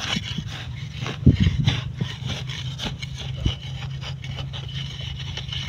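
A ramba (Punjabi hand hoe) scraping and chopping through dry, cloddy soil while weeding, in irregular scrapes with a couple of sharper knocks, about a second and a half and three and a half seconds in. A steady low hum runs underneath.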